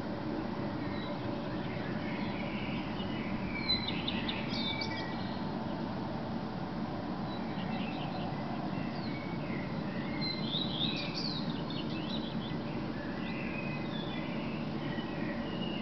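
Male common redstart singing short, twittering song phrases a few seconds apart, over a steady low background rumble.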